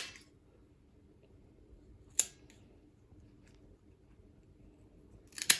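Dog nail clippers cutting through a large dog's claws: three sharp snips, one at the start, one about two seconds in, and one near the end.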